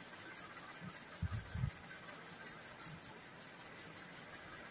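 Quiet room hiss while two people eat rice by hand from steel plates at a table, with a short cluster of soft, low thumps about a second in.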